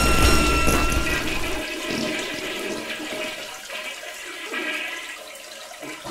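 Toilet flushing: a loud rush of water that dies away gradually over several seconds.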